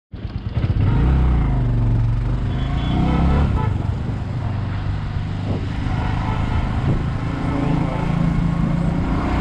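Bajaj Avenger 220 motorcycle's single-cylinder engine running on the move, its pitch rising and falling as the revs change.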